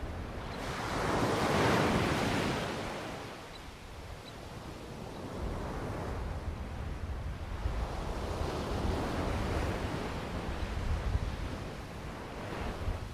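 Ocean waves breaking on the shore below, a surge of surf about a second in and another swell in the second half, with low wind rumble on the microphone.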